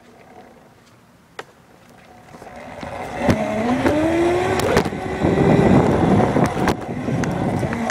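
Razor E150 electric scooter pulling away, its motor whine rising in pitch as it speeds up from about three seconds in. The whine runs over a rushing noise and scattered sharp knocks. Before that it is quiet but for a single click.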